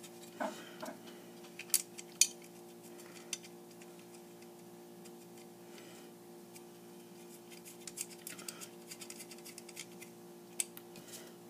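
Small metal parts of a guitar effects pedal being handled and fitted together: scattered sharp clicks and taps, two loud ones about two seconds in and a run of lighter ticks later, over a faint steady hum.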